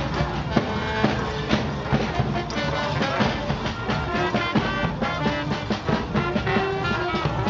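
Music with a melody over a steady beat of about two strikes a second.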